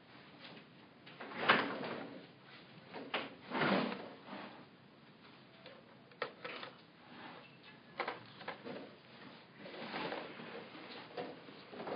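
Handling noises close to the microphone: an irregular run of scrapes, rustles and light knocks, the loudest about a second and a half in and another near four seconds.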